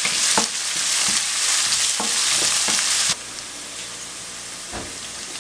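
Chopped green chillies, ginger and whole spices sizzling in hot oil in a nonstick wok, stirred with a wooden spatula that scrapes and taps against the pan. The sizzle is loud for about three seconds, then drops suddenly to a softer sizzle.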